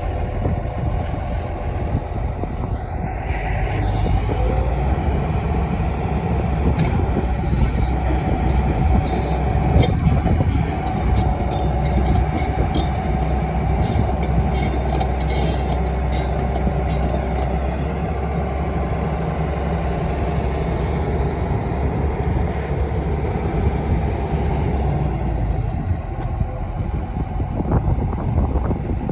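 Excavator's diesel engine running steadily as the machine travels on its tracks, with a deep rumble throughout and a run of sharp clicks and squeaks in the middle.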